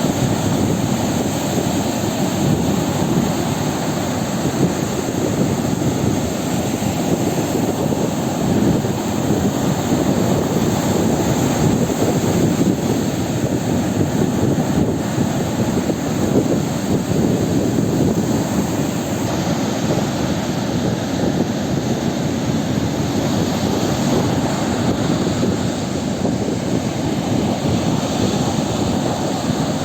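Sea surf: a steady, dense rush of waves, deep and continuous without distinct breaks between swells.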